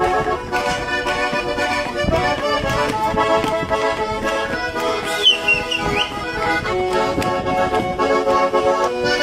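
Accordion music: chords held and changed steadily, with a brief high sliding note about five seconds in.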